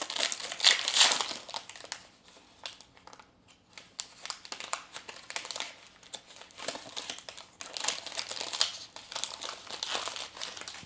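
A foil Pokémon booster pack being torn open and handled, its wrapper crinkling, loudest in the first second or so and again in the last few seconds.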